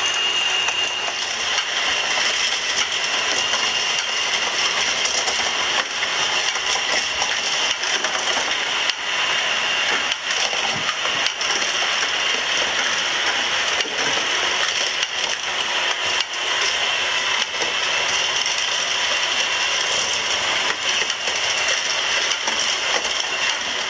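Battery-powered gear-driven lifts of linked Tomica World toy playsets running together, carrying die-cast Tomica cars up the track: a steady whirring with dense, rapid plastic clicking.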